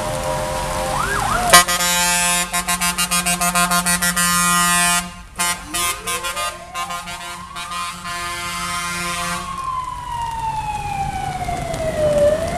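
Fire engines sounding their warning equipment. About a second and a half in, a loud buzzing horn blast begins and then breaks into rapid pulses, about four a second. From about five seconds on, a wailing siren rises, falls slowly, and starts to rise again near the end.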